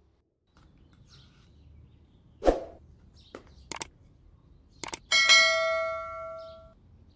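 Knife clinking against a metal serving tray and china plates: a few sharp clicks and knocks, then one strike that rings out for about a second and a half.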